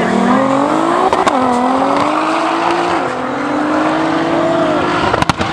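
Two Nissan GT-Rs, an R35 and an R32 Skyline, accelerating hard side by side under full throttle. Their engine notes climb in pitch, drop sharply at a gear change about a second in and again around three seconds, then climb again. There is a brief dropout near the end.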